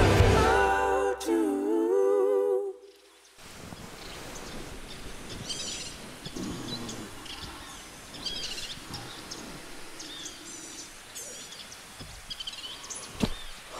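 Background music fades out in the first few seconds. Then comes a quiet outdoor background with faint, scattered bird chirps, and a single sharp click near the end.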